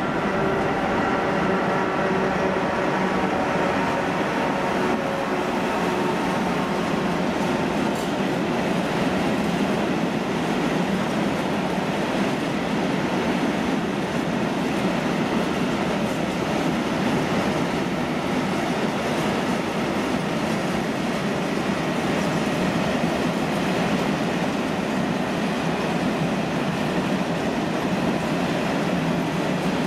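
Long freight train of open wagons rolling steadily through, hauled by a ZSSK Cargo class 131 electric locomotive. A set of steady tones from the passing locomotive fades over the first several seconds, leaving a steady rumble of wagon wheels on the rails.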